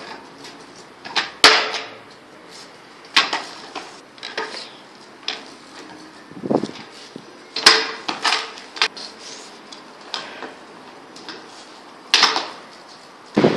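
Stunt scooter clattering on concrete: repeated sharp clacks as the deck and wheels slam down and strike the ground at irregular intervals, some followed by a short rolling scrape.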